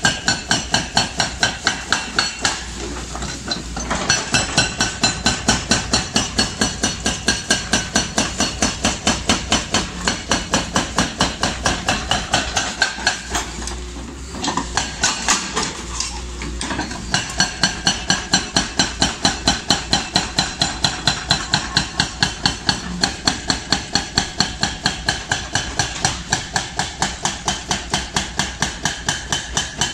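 Excavator-mounted hydraulic breaker hammering concrete: a rapid, steady run of metallic blows, several a second, with a ringing tone, broken by a few short pauses.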